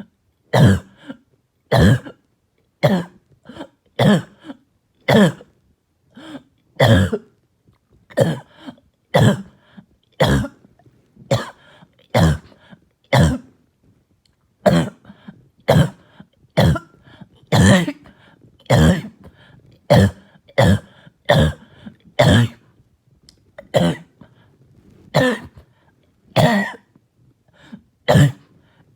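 A person's barking, hacking cough repeating in a steady run of short coughs, about one a second.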